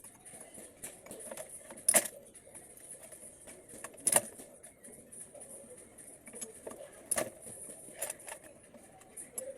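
Metal parts and tools clinking and knocking against each other, with sharp strikes about two, four, seven and eight seconds in.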